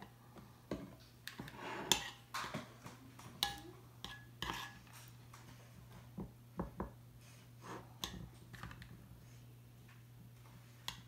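Metal spoon stirring and scraping in a ceramic bowl of thickening glue-and-contact-solution slime: irregular clinks and scrapes, frequent in the first half, then sparser and quieter.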